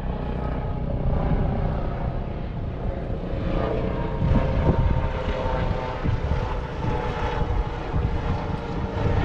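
Strong wind buffeting the microphone: a heavy, gusting low rumble, with faint steady tones above it.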